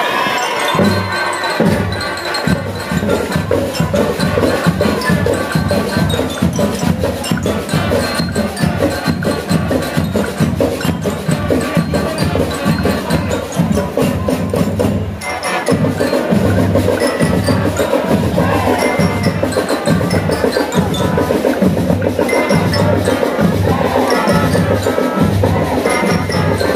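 School marching band playing: trumpets, trombones and sousaphones over a steady, even drum beat, with a short break about halfway through before the beat picks up again.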